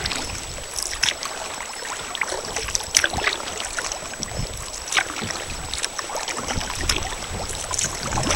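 Water splashing and lapping against a sea kayak's hull as it is paddled, with irregular splashes from the paddle strokes about every second or two, over a low rumble of wind on the microphone.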